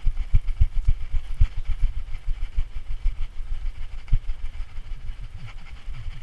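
Handling rumble from a GoPro camera strapped to a moving dog: low, irregular knocks, about three a second, as the camera jostles with the dog's strides.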